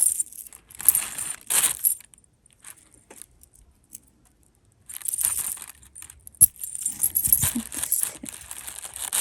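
Heavy jewelry belt jangling and clinking as it is handled, in several bursts, with one sharp click a little after the middle.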